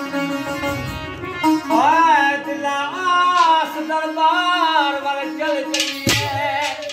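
Live folk music: a sitar holds a steady drone note while a melody above it bends and wavers. There is one sharp knock about six seconds in.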